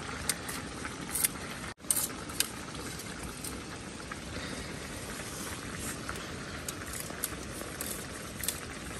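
Steady sizzling of a wok of chopped vegetables cooking over an open wood fire, with a few faint scattered crackles.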